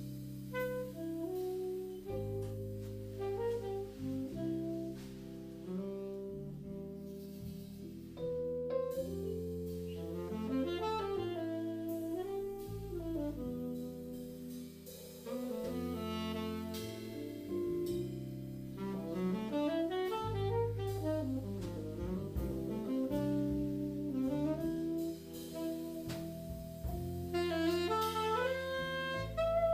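Jazz quartet playing live: a saxophone carries a melody of held notes that slide up and down, over keyboard chords, electric bass and drums.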